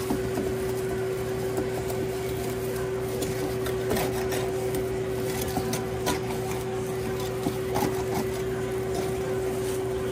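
A small electric machine humming steadily at one pitch, with scattered light clicks and knocks over it.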